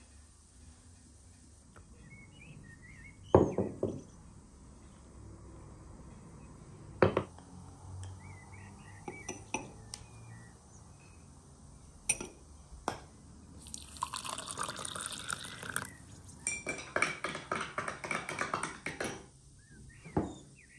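Kitchen work at a wooden table with a glass mixing bowl: a few sharp knocks as containers are set down, liquid poured into the bowl of flour, then a run of rapid clinking and scraping against the glass for several seconds in the second half. Faint bird chirps sound in the background.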